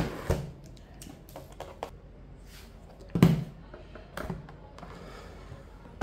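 Plastic laptop being handled and set down on a wooden desk: a few sharp knocks and clicks, the loudest about three seconds in, with small ticks between them.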